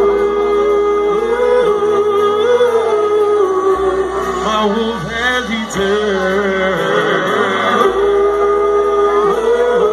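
A live band playing, heard from within the crowd, with a long held, wavering wordless vocal line over a bass line that changes note every couple of seconds.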